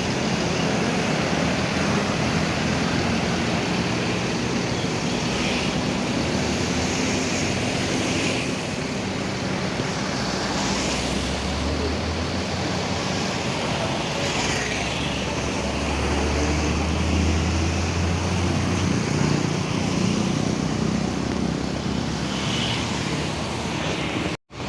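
Diesel engine of a Haryanto intercity bus running, a steady drone that deepens twice, about eleven and sixteen seconds in. It cuts off abruptly just before the end.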